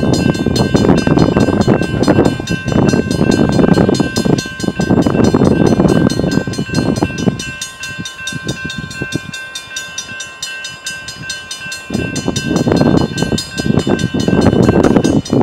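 Railroad grade-crossing warning bell ringing in rapid, even strokes as the crossing signals activate for an approaching freight train. Heavy gusts of wind buffet the microphone, strong for the first several seconds, easing in the middle and rising again near the end.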